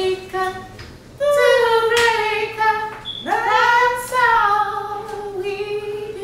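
Women singing a cappella in long held notes: a short note at the start, then from about a second in a long note that slides slowly down in pitch, and a second long note from about three seconds in that starts with a quick upward swoop.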